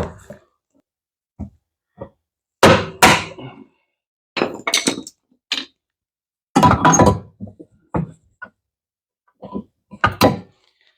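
Knockout being struck out of an electrical box to open a cable entry: an irregular series of sharp knocks, loudest about three seconds in and again about seven seconds in.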